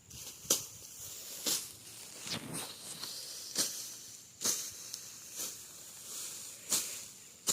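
A hand tool cutting into ground or vegetation with regular swishing strokes, about one a second, seven in all.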